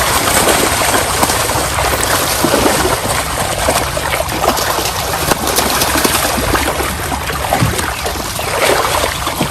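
Water splashing and trickling: a steady wash of noise broken by many small splashes.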